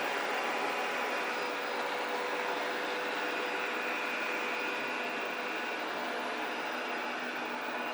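Chuwi iLife A4 robot vacuum cleaner running: a steady whir with a few faint steady tones over it.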